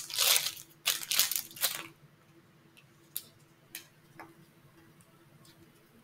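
Plastic medical packaging crinkling and tearing as it is opened, in two loud bursts over the first two seconds, followed by a few faint small plastic clicks.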